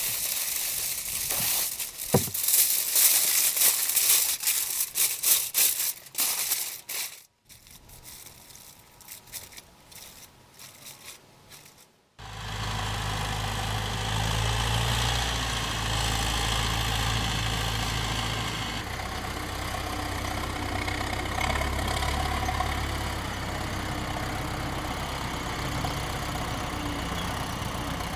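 Sizzling and crackling of steak searing on a hot coal-heated iron, cutting off suddenly about seven seconds in, with fainter crackles after. From about twelve seconds on, a steady low mechanical hum takes over.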